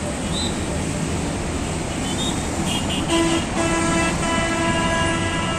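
Diesel locomotive air horn of a GT18LA-2 engine sounding about three seconds in: a short blast, a brief break, then a long steady blast, over a steady background rumble.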